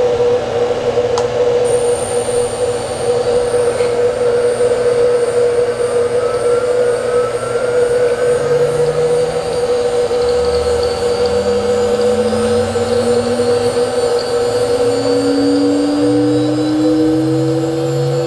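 Ambient electronic outro music: a steady held tone over slowly changing low notes, one of which glides upward through the second half.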